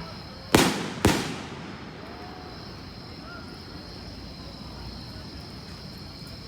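Two fireworks shells bursting about half a second apart, each a sharp bang that trails off in echo. A steady high-pitched hum continues behind them.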